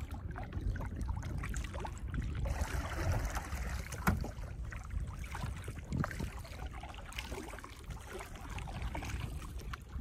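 Water lapping and trickling against a canoe's hull, with a low wind rumble on the microphone and a few small ticks and knocks scattered through.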